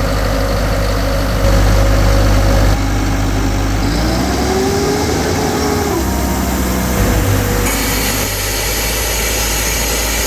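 Diesel engine of a towable high-pressure air compressor running steadily, with a tone that rises and falls between about four and seven seconds in. From about eight seconds in, a steady hiss joins it.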